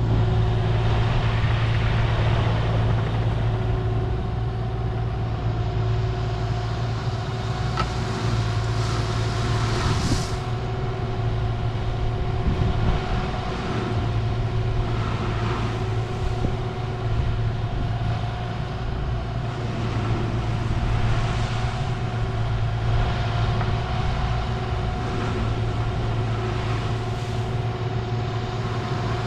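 Diesel engine of a compact excavating machine running steadily at a constant speed, a low hum with a few brief swells of hissing noise over it.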